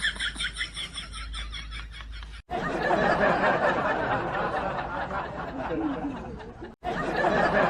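Laughter in edited pieces: a rhythmic run of giggling that cuts off abruptly about two and a half seconds in, then a busier stretch of laughing with another sudden cut near the end.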